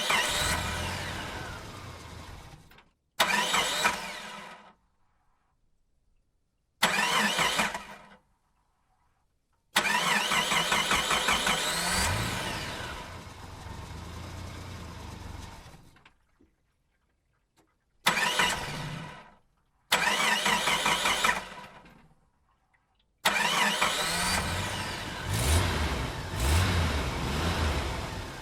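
Car engines starting, one recording after another: about seven separate start-ups, each beginning suddenly and dying away into silence before the next. Some rev with a rising pitch.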